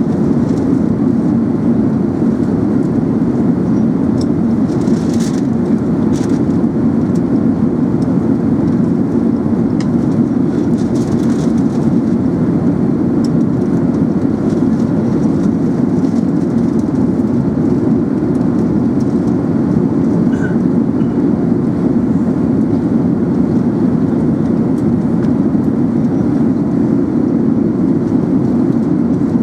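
Steady rumbling cabin noise of an Airbus A380 in flight, from engine and airflow, unchanging throughout, with a few faint ticks.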